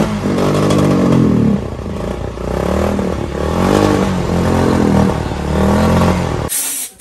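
Motorcycle engine running in a workshop and being revved in a series of throttle blips, its pitch rising and falling about five times. The first rev is longer, and the sound stops abruptly near the end.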